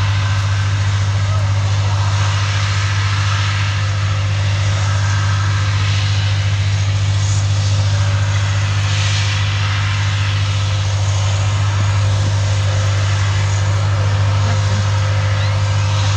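Titan armoured bridge layer's diesel engine running at a steady, constant speed with a deep, unchanging drone while it launches its bridge.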